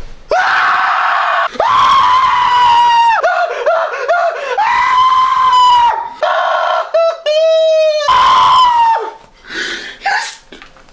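A man screaming and wailing in anguish: four long, high, held cries with short choked, sobbing cries between them. The cries die down over the last two seconds.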